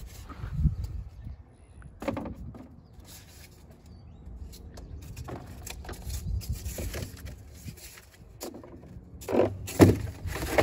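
Nudura ICF blocks, foam panels with plastic webs, being handled and set onto a footing between rebar: irregular foam scraping and bumping, with the loudest knocks near the end as a block is pressed down into place.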